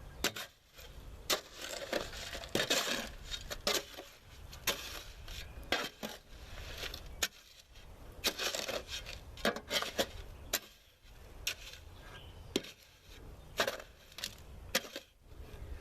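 Concrete being mixed by hand in a metal wheelbarrow: irregular gritty scraping strokes with sharp clinks of a tool against the barrow.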